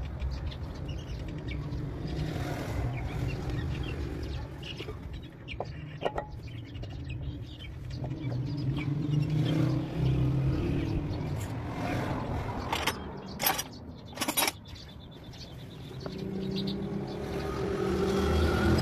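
A steady low engine rumble that grows louder near the end, with a few sharp metal clinks around the middle as the parts of a tractor's rear-hub planetary reduction gear are handled.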